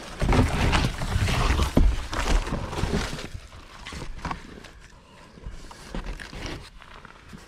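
A large sheet of cardboard being handled, flexed and rustled as it is picked up and held up, with close rubbing and knocking noise loudest over the first three seconds, then fainter.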